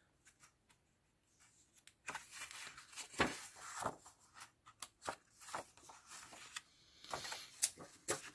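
Sheets of patterned scrapbook paper rustling as they are handled and turned over, in a string of irregular rustles and sharp flicks that start about two seconds in.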